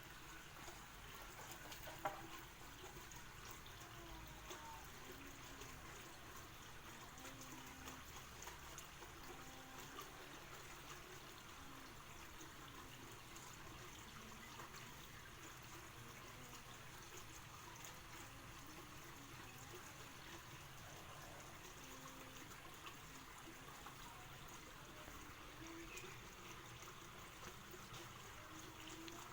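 Faint, steady trickle of water, with one sharp click about two seconds in.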